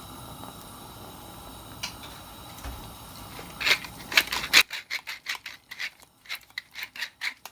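Egg frying in oil in a pan, a steady sizzle with a few sharp knocks of a utensil near its end; then the sizzle cuts off suddenly and a quick run of sharp utensil clicks on cookware follows, about three or four a second.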